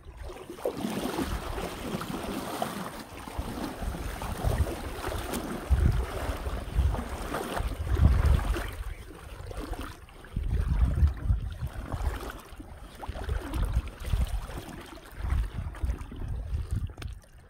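Wind buffeting the microphone in irregular low rumbles, over a steady rushing hiss of wind and water.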